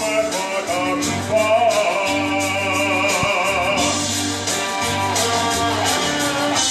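Male tenor singing with vibrato into a microphone over an instrumental backing accompaniment.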